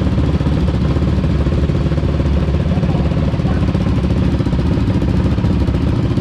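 Quad bike (ATV) engine idling steadily and loudly.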